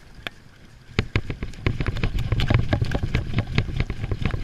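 Spinning reel's drag giving line as a hooked fish runs on a speed jig: a dense, irregular clicking over a low rumble of handling, starting about a second in.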